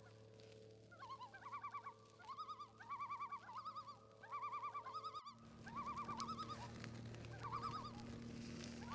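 Bird-like warbling calls: a fast-wavering trill, given in short runs of about half a second and repeated over and over, over a low steady hum.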